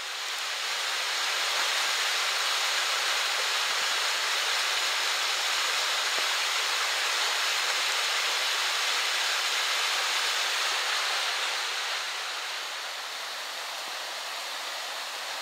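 Steady rushing of a small river in flood, swollen by a thunderstorm, its fast muddy water running over rocks; a little quieter from about twelve seconds in.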